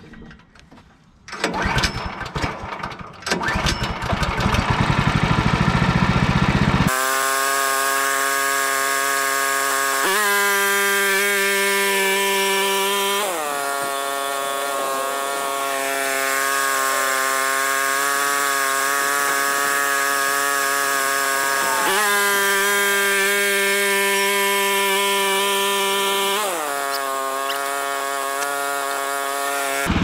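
Kohler gasoline engine on a Woodland Mills portable bandsaw mill starting about a second and a half in and catching. About seven seconds in it is brought up to high speed with a hiss on top, and then runs steadily, its note shifting down and up a few times.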